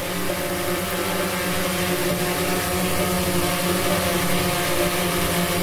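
Autel EVO II 8K quadcopter hovering in place: its propellers and motors give a steady hum made of several held tones over a rushing airflow noise.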